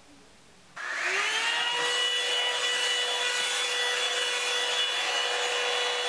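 Revlon One Step hair dryer brush switched on under a second in: its motor whine climbs in pitch for about a second, then holds a steady high whine over the rush of blown air.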